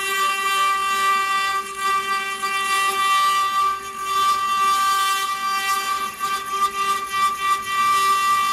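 CNC router spindle running with a steady high whine while its bit engraves stone, with a rough, flickering grinding noise under the whine.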